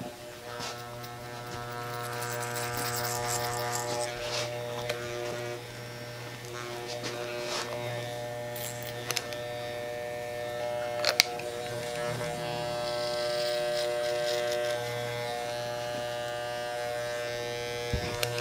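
Electric hair clipper buzzing steadily as it trims the hair around the ear, its level swelling and easing as it works. A single sharp click about eleven seconds in.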